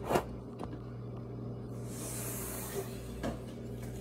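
Handling noise around a taped cardboard box: a knock right at the start, a few faint taps and a brief soft hiss about two seconds in, over a steady low hum.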